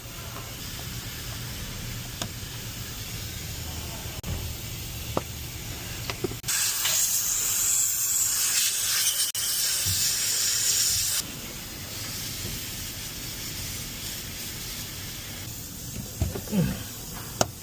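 A pressurised spray hissing steadily for about five seconds, starting and stopping abruptly, most likely an aerosol can or a compressed-air blow gun used on the car.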